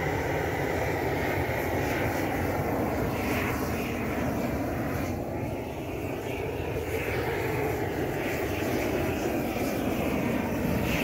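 Hand-held gas burner torch running steadily as its flame is swept over a wooden board, scorching the surface of the wood.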